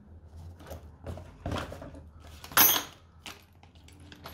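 Hands handling plastic kit parts and sealed plastic parts bags in a cardboard box: a few short rustles and light clatters, the loudest about two and a half seconds in.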